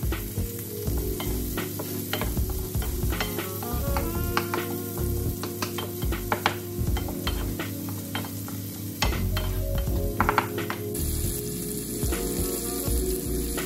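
Halved grape tomatoes and minced garlic sizzling in olive oil in a saucepan as they cook down, with a wooden spoon stirring and tapping against the pan in short clicks, a cluster of louder taps about two-thirds of the way through.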